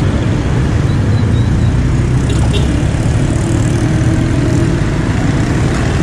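Road traffic on a nearby street: motorcycles and a car driving past, heard as a steady low noise with engine sound rising as the car approaches.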